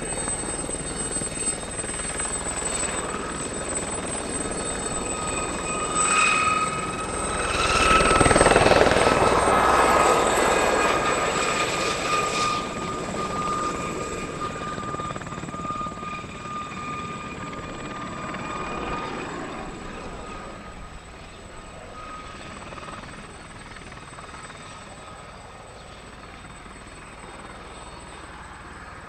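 An Aérospatiale Gazelle's single turbine engine and fenestron tail rotor whine steadily under the rush of its rotors as the helicopter flies low past. It is loudest about eight to twelve seconds in, then fades as the helicopter moves away.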